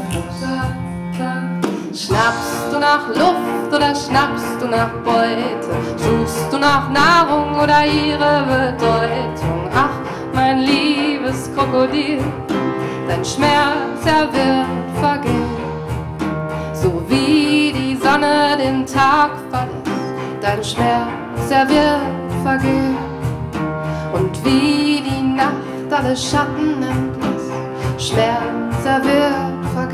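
Live acoustic band music: cello, piano and drum playing a song, with a singing melody line over it.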